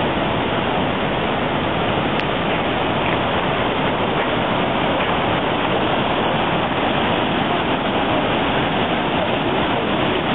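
River whitewater rushing steadily, with no letup; the river is running high after a hurricane.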